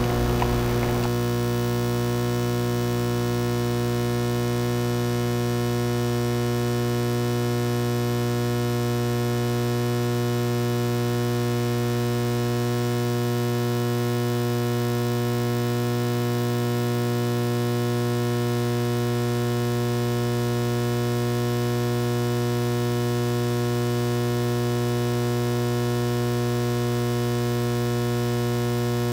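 Steady electrical mains hum with a buzzing stack of overtones, unchanging in pitch and level, after the last of the music dies away about a second in.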